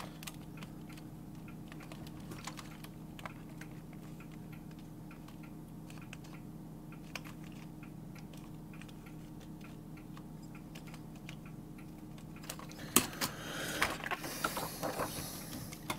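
Low steady hum with faint scattered clicks, then, from about three-quarters of the way through, a run of sharper clicks and rustling as the thin plastic membrane foil of an Amiga keyboard is lifted and handled.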